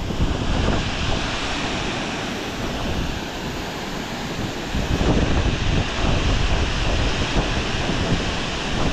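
Steady rush of fast-flowing creek water, with wind buffeting the microphone in gusts, a little stronger from about halfway through.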